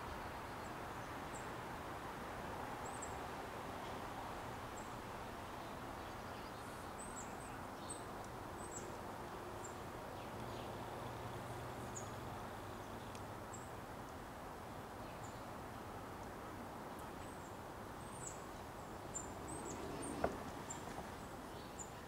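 Steady outdoor background noise with faint, short, very high chirps scattered through it every second or so. A single sharp click comes near the end.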